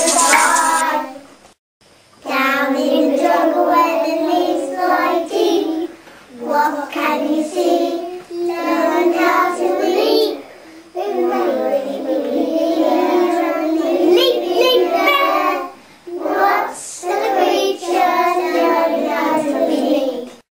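Young children singing a song in phrases, with brief pauses between them.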